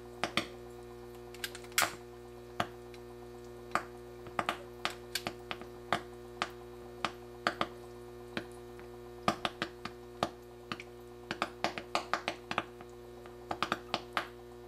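Sharp little pops, irregular and sometimes in quick runs, as gas bubbles coming up through a water-filled jar are lit by a lighter flame held at its mouth. A steady hum underlies them.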